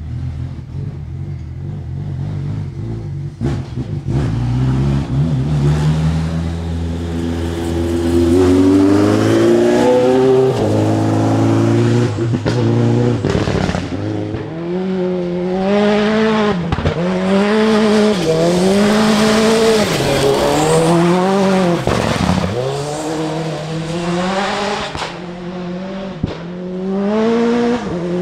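Turbocharged Mitsubishi 4G63 four-cylinder of a VW Polo Open Class rally car, running hard: its revs hold and step up at first, then from about halfway repeatedly climb and drop sharply every second or two.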